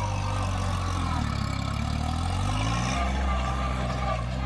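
Kubota A211N compact tractor's three-cylinder diesel engine running under load as it drags a cultivator through dry soil. A little after a second in, the engine speed dips, then climbs back up over the next second and a half.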